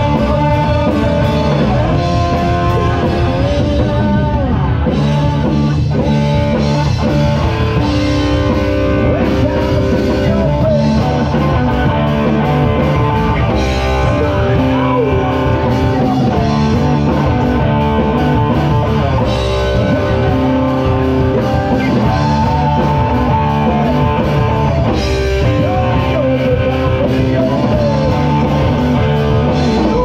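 Live rock band playing loud and steady: electric guitars, bass and drum kit, with a singer's vocals.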